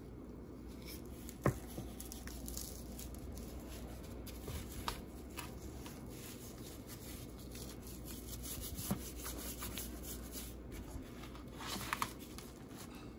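Hands in a thin plastic glove rubbing seasoning into a whole raw tilapia on a plastic cutting board: soft rubbing and glove crinkling, with a few light knocks as the fish is handled.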